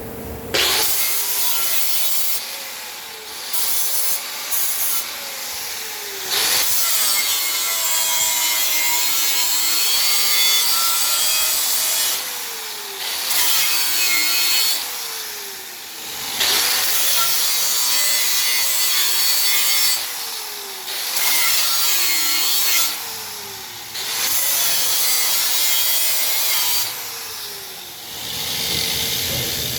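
Rubbing or scraping in long repeated passes of a few seconds each, with a squeal that sweeps down and back up in pitch during each pass.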